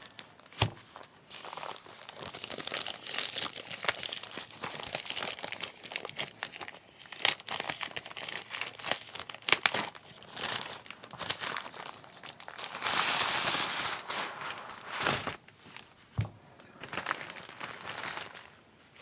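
Plastic packaging crinkling and rustling as a keyboard is unwrapped, with scattered sharp clicks and knocks and a louder stretch of rustling about two-thirds of the way through.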